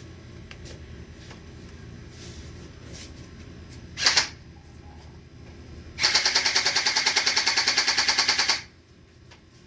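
Electric toy gel blaster pistol firing: a brief shot about four seconds in, then a full-auto burst of about a dozen rapid shots a second for about two and a half seconds that stops abruptly.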